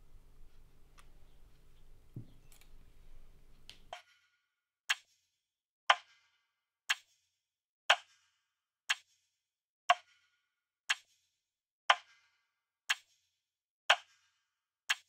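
Faint room tone with a few small clicks, then from about four seconds in a sharp, even plop about once a second against dead silence, repeating steadily like a clock's tick or a falling drop.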